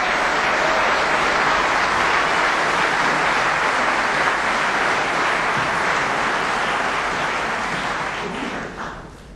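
Snooker audience applauding steadily, the clapping dying away near the end.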